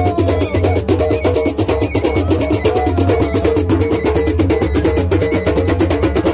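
Frafra abongo drumming: several drums and struck percussion playing a fast, dense, steady rhythm.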